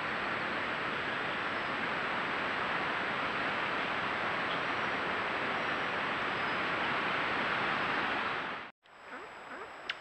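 Steady, even rushing hiss of night forest ambience picked up by a camera trap's microphone, with a faint thin high whine over it. It cuts off suddenly near the end, giving way to a few faint short chirps.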